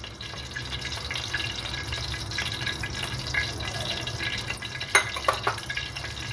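Cooking oil heating in an aluminium pressure cooker, sizzling and crackling faintly, with a few sharper pops about five seconds in; the oil is hot and ready for frying.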